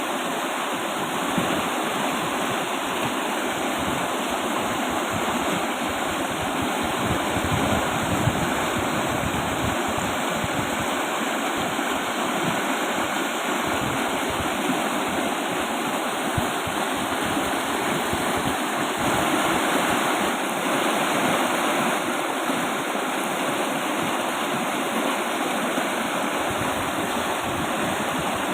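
Fast-flowing river rushing steadily, a dense continuous roar of churning water, swelling slightly about two-thirds of the way through.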